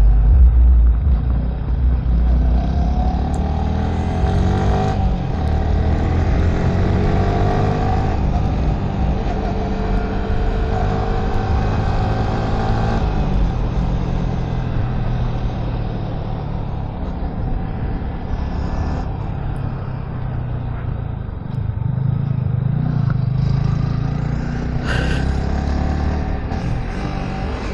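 Yamaha sport motorcycle engine being ridden hard, its pitch climbing again and again as it revs up through the gears, dropping about three-quarters of the way in and then climbing again. A heavy, steady wind rumble on the microphone runs under the engine.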